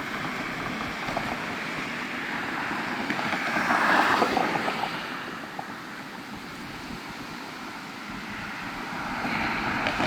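Steady rushing wind during a thunderstorm. It swells to its loudest about four seconds in, then eases off.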